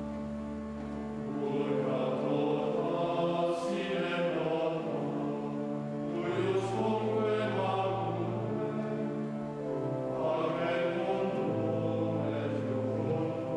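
Men's choir singing chant, accompanied by a pipe organ holding steady low notes that change pitch every few seconds.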